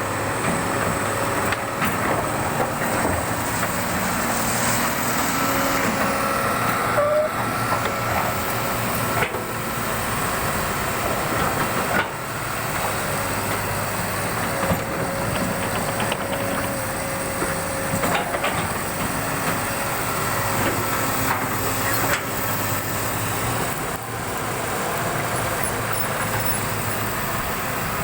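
Heavy excavator diesel engines running as the machines work, with a steady whine over the engine and a few short knocks scattered through.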